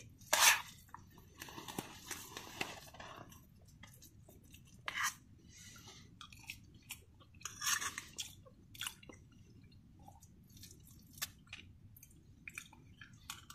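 A person eating thin khichdi: chewing, with irregular short sounds, the loudest about half a second, five and eight seconds in.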